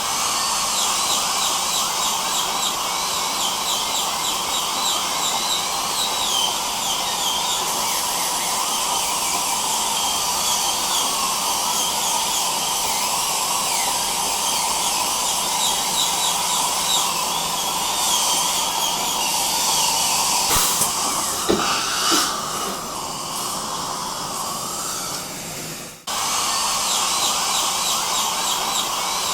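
Dental drill whining steadily over the hiss of a dental suction. It cuts out for a moment near the end and starts again.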